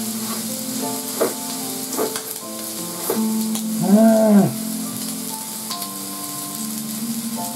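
Meat sizzling on a hot griddle under quiet background music, with a few crunches of chewing a lettuce wrap. About four seconds in, a drawn-out hummed "mmm" of enjoyment, rising and then falling in pitch, is the loudest sound.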